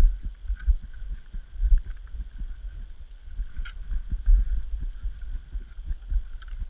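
Digging snow with a shovel, heard on the body-worn camera mainly as irregular low thumps and rumble from the wearer's movement, with a few light clicks.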